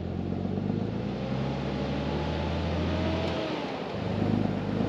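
A vehicle engine running and accelerating, its note changing about three and a half seconds in.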